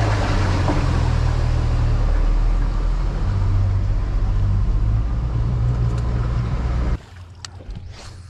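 Honda outboard motor driving the boat under way, a steady engine hum with rushing water and wind noise. It cuts off abruptly about seven seconds in, leaving quiet with a few light clicks.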